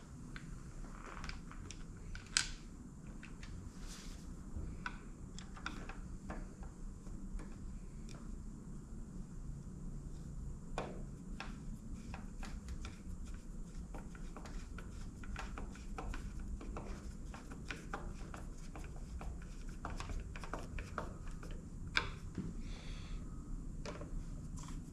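Scattered light clicks and taps of hand work on a motorcycle's plastic tail light, as its lens and screws are fitted and tightened, over a low steady hum. A sharper click comes about two and a half seconds in and another near the end.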